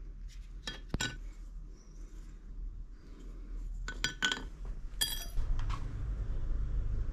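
Light metallic clinks and taps as a steel knife blank, wooden handle scales and a copper pin are handled and set down on a steel plate on a workbench. One clink about five seconds in rings briefly. A low steady hum comes in soon after.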